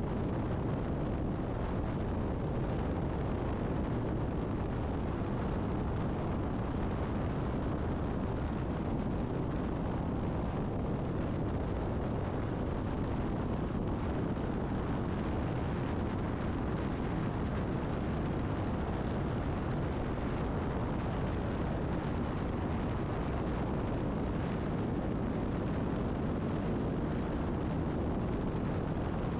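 Steady wind buffeting and road noise on a camera mounted outside a vehicle travelling at highway speed, a constant rush with a heavy low rumble and no engine note standing out.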